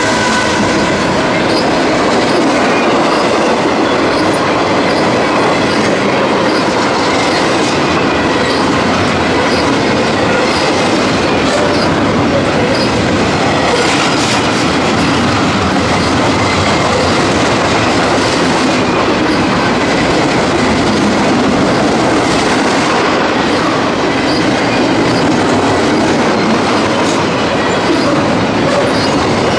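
Double-stack intermodal freight train rolling past close by: a loud, steady rush of steel wheels on rail with clickety-clack over the joints. In the first couple of seconds a second train's locomotives pass on the far track.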